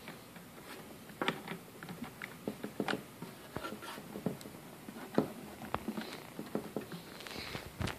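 Irregular small clicks and taps from handling a laptop and plugging in a VGA cable.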